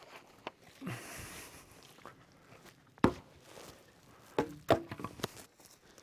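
Footsteps and rustling through dry leaves and undergrowth, with a sharp crack about three seconds in and a quick run of knocks and snaps near the end as dry fallen branches are handled.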